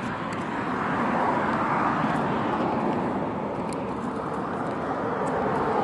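Road traffic: cars passing on a city street, a vehicle going by in the first few seconds and another swelling up near the end.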